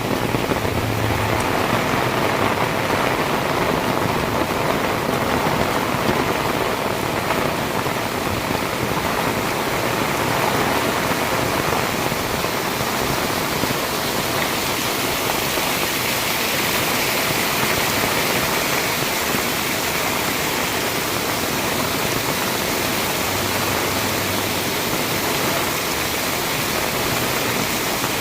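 Heavy rain pouring steadily, an even hiss of water with no letup. A faint low hum comes in briefly at the start and again near the end.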